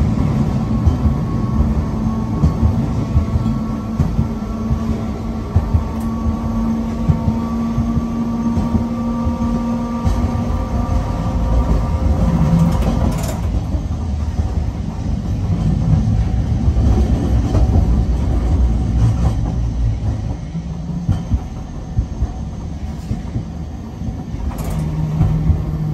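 Nagasaki streetcar running on street track, heard from inside the driver's cab: a steady rumble of wheels on rails with a hum that stops about halfway through. There is a sharp click about halfway and a couple more clicks near the end.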